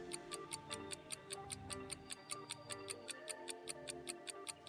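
Countdown-timer clock ticks, quick and evenly spaced, over soft background music.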